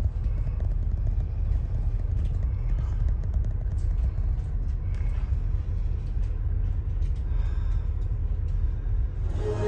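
Steady low rumble of a passenger ferry's engines and machinery, heard inside the accommodation deck while under way. Music comes in just before the end.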